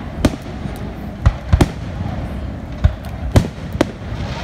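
Aerial firework shells bursting: about six sharp bangs in four seconds, irregularly spaced, over a steady background rumble.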